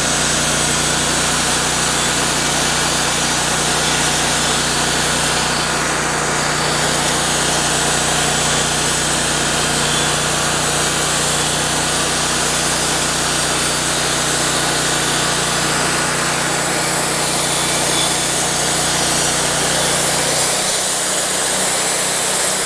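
Wood-Mizer LT40 hydraulic band sawmill running under load: its engine drones steadily while the band blade saws through a large pecan log, cutting a 2-inch slab. The engine note shifts slightly near the end.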